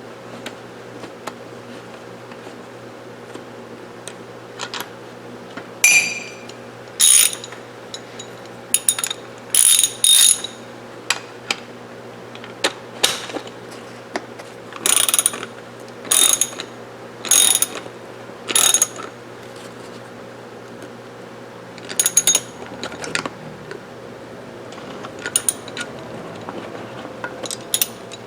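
Short bursts of sharp metallic clicking and ratcheting as the metal parts of a Mossberg 464 lever-action rifle are handled during reassembly, about a dozen bursts, several at an even pace of roughly one a second in the middle, over a low steady hum.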